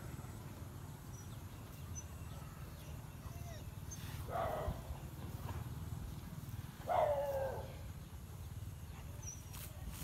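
A dog gives two short barks about two and a half seconds apart, each falling in pitch, over a steady low rumble.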